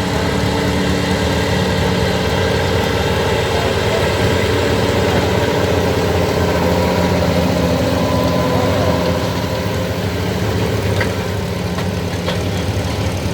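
Cummins L10 inline-six diesel lorry engine in a pulling tractor, running steadily with a deep, even engine note that eases slightly near the end.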